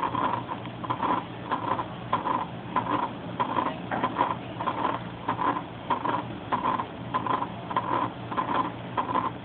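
Recorded heart sounds of pulmonary stenosis played through a speaker: a steady beat-and-murmur rhythm repeating about twice a second, over a steady low hum.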